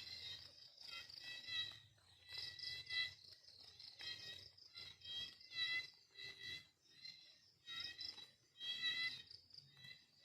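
High-pitched insect chirping in repeated bursts, each about half a second to a second long, coming about once every second or so.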